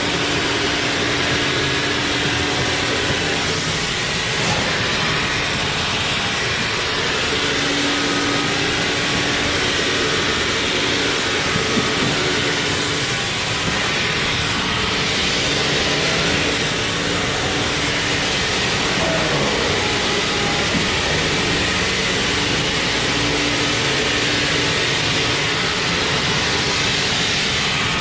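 Sawmill machinery running steadily and loudly: a dense, unbroken mechanical noise with a constant hum under it.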